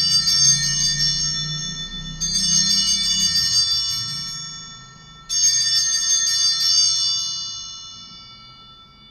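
Altar bells (a cluster of small bells) shaken three times, each shimmering ring fading away, the last one dying out near the end. They mark the elevation of the chalice just after the consecration of the wine at Mass.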